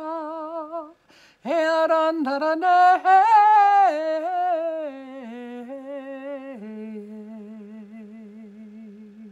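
A woman singing unaccompanied in tongues, flowing wordless syllables on held notes with vibrato. She breaks off briefly about a second in, then sings on, growing softer, and ends on a long low held note.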